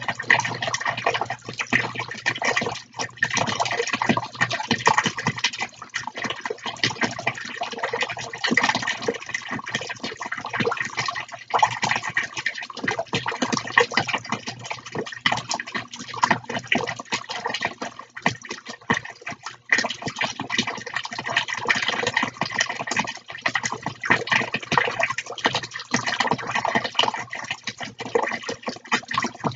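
Small fountains running: water jets splashing and spattering continuously back into plastic tubs, over a steady low hum.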